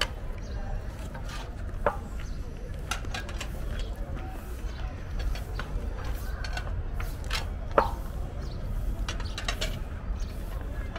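Long metal ladle scraping and clinking against a huge metal pot while stirring a heap of cooked rice pulao, with two sharper knocks about two seconds and eight seconds in.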